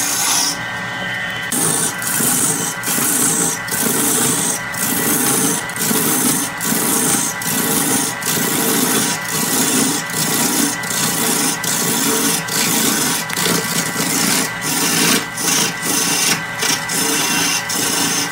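Lathe gouge cutting into a large redwood blank spinning on a wood lathe: a continuous rough shaving and scraping sound with frequent brief dips.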